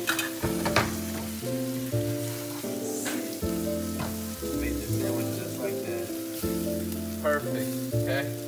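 Food sizzling in a frying pan, with a few sharp scrapes and clicks of a metal spatula against the pan, over background music with a changing bass line.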